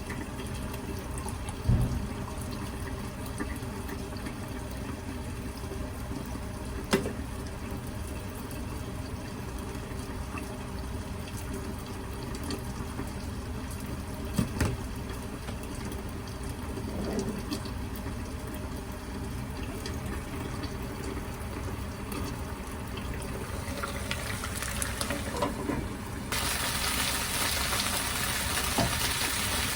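Kitchen tap water running steadily, with a few sharp clinks. About 26 seconds in, a louder sizzling hiss starts suddenly.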